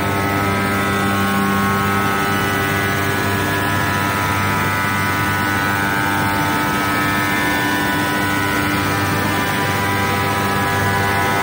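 Bosmak CNC glass-working machine running its grinding wheel on a large glass sheet: a steady, many-toned whine over a low hum.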